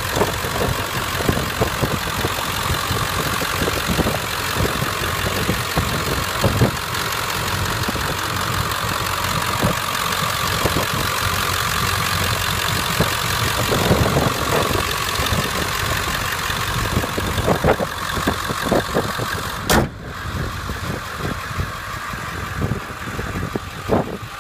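Ford 7.3-litre Power Stroke turbo-diesel V8 idling steadily, heard up close with the hood open. There is a sudden break about 20 seconds in, after which it sounds a little quieter.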